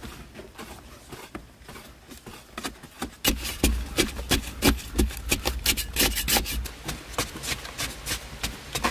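Repeated rough scraping strokes, faint at first and then louder and quicker from about three seconds in, several strokes a second.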